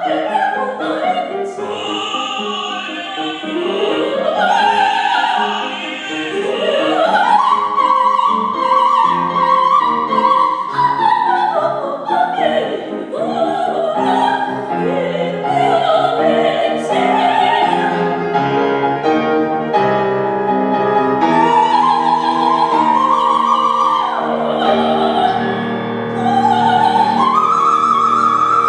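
A female opera singer singing an aria with piano accompaniment, her voice climbing in sweeping runs to long, held high notes with wide vibrato.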